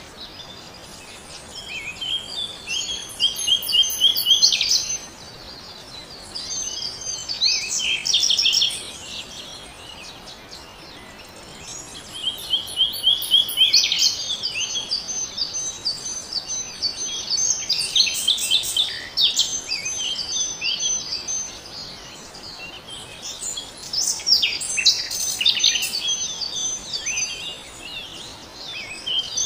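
Birds singing in bouts of rapid high trills, chirps and whistled notes, with short quieter pauses between the bouts.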